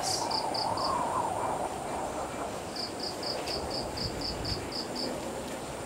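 Insect chirping: short high chirps repeating about four times a second, in two runs with a pause between, over a low hiss.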